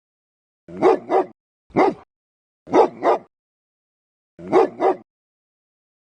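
A dog barking: seven loud barks in four short bursts, mostly in pairs, with silence between the bursts.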